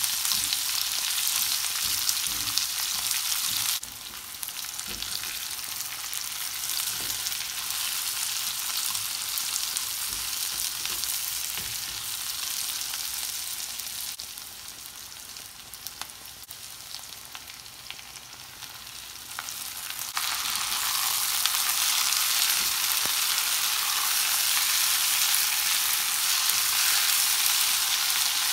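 Sliced onions frying in oil and ghee in a nonstick pan: a steady sizzle with a silicone spatula stirring and scraping now and then. The sizzle drops about four seconds in and grows louder again from about twenty seconds, by which point mixed vegetables have joined the onions.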